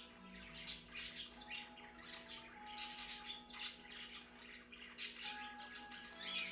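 Lovebirds chirping and squawking: short, sharp, high calls at irregular intervals, several of them.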